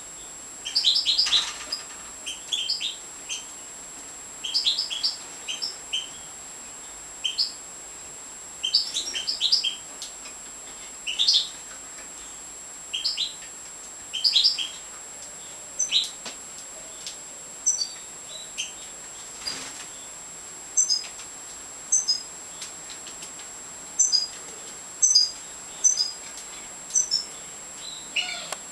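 Major goldfinches calling: short clusters of high, twittering chirps every second or two, giving way in the second half to thinner, higher single pips.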